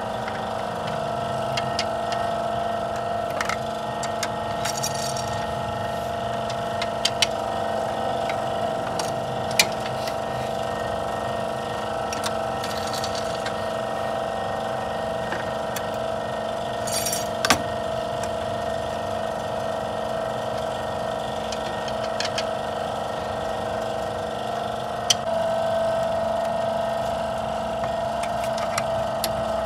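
Occasional sharp metal clinks of a socket extension and ratchet working on intake manifold bolts, over a steady mechanical hum with several fixed tones.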